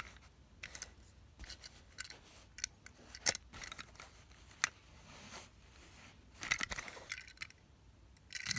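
Die-cast metal toy cars being handled, turned and set down on a cloth surface: scattered light clicks and taps, busier about six and a half seconds in and again near the end.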